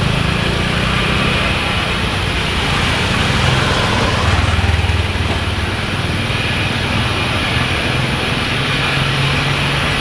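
Emirates Boeing 777-300ER's GE90 jet engines giving a steady, loud, low roar during its takeoff departure.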